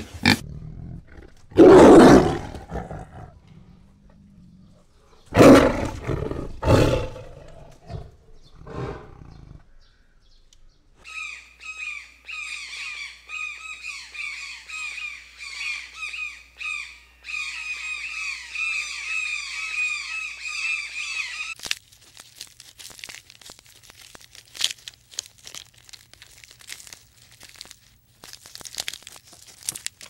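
Loud harsh calls from a peccary, three of them in the first seven seconds. Then, from about eleven seconds in, a bird calls over and over for about ten seconds, followed by faint scattered clicks.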